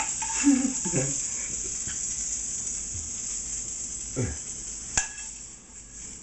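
Dredged chicken breast pan-frying in a hot skillet, a steady sizzle, with a sharp clack of a utensil or pan about five seconds in.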